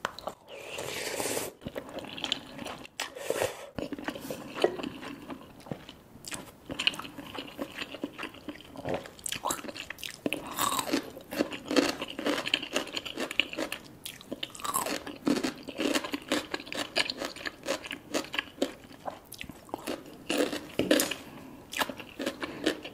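Close-up eating sounds of Korean spicy instant noodles: a slurp of noodles off a wooden spoon at the start and another about three seconds in, then steady chewing with many small wet clicks.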